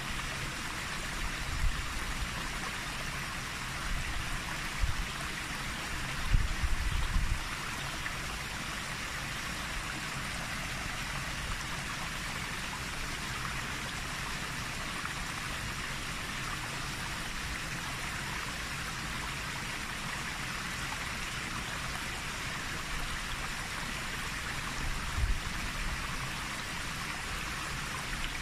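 Floodwater rushing over a waterfall and down white-water rapids: a steady, even rush. A few short low buffets come early and again near the end, from wind or handling on the microphone.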